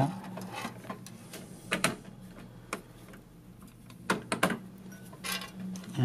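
A handful of light clicks and taps as a Cooler Master CPU heatsink and its spring-loaded mounting screws are shifted and lined up over the motherboard's mounting holes, over a faint steady low hum.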